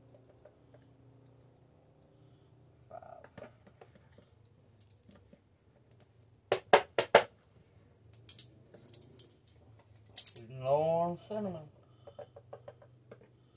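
Large plastic shaker jar of ground cinnamon being shaken and tapped to get the spice out: four quick sharp knocks about halfway, then a few lighter clicks. A brief wordless voice sound follows near the end.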